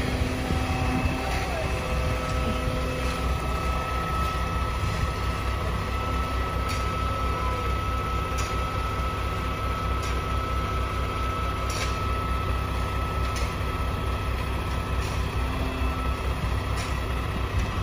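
Concrete mixer truck's diesel engine running steadily with a low pulsing rumble. A thin steady whine rides over it, and faint ticks come about every second and a half.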